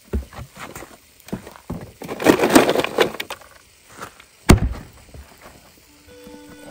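Irregular knocks and clatter of camp cooking gear and tableware being handled, with a louder scraping rustle about two seconds in and a heavy knock about four and a half seconds in. Soft music starts near the end.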